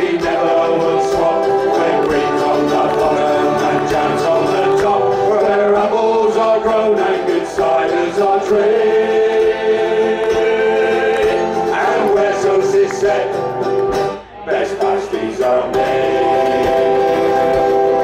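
Men's vocal group singing a folk song in harmony over strummed ukuleles, with a brief drop in the sound about fourteen seconds in.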